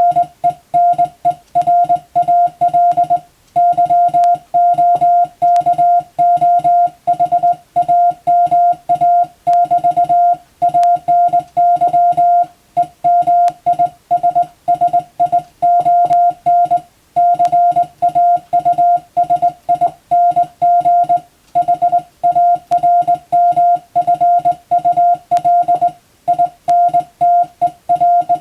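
Morse code sent as a beeping tone of about 700 Hz, keyed rapidly in dots and dashes with brief pauses between words: English-text telegram sending practice.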